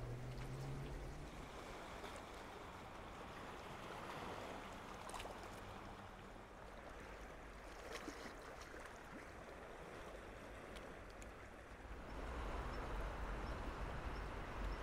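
Small sea waves washing and lapping among shoreline rocks, a soft steady wash with a few faint clicks; the low rumble gets louder near the end.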